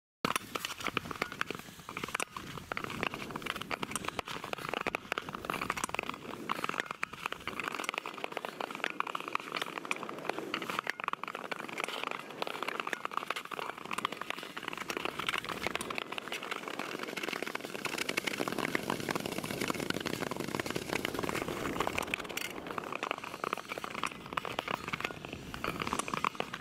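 Ice skate blades gliding and scraping over natural ice: a steady scraping hiss with many small crackling clicks.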